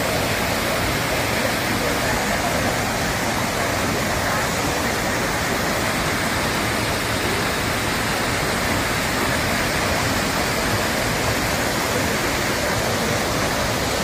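Steady rush of white water cascading over rocks at a small waterfall.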